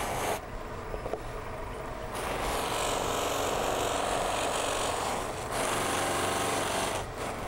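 Western red cedar weed pot pressed against a spinning buffing wheel on a lathe: a rushing rubbing hiss in a few long passes, with short breaks between, over a low motor hum. The wheel carries no wax, buffing off excess wax.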